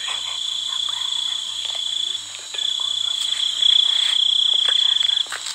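Night insects trilling in a steady, high, continuous buzz, which breaks off briefly about two seconds in and again near the end.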